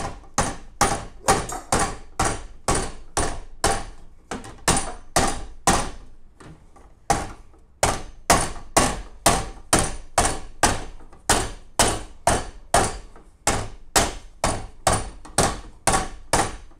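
Rubber face of a mallet striking the brass bell flare of a Slingerland single-piston bugle, in steady blows of about three a second with a short pause about seven seconds in. The big swings are roughing the badly bent flare back into shape.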